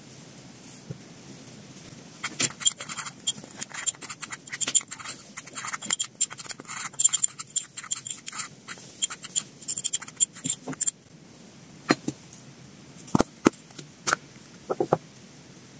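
A small metal spoon stirring and scraping powdered hamster food against the inside of a small ceramic bowl, a quick clinking, scraping run lasting about nine seconds. A few separate clicks follow as a plastic food storage box is handled.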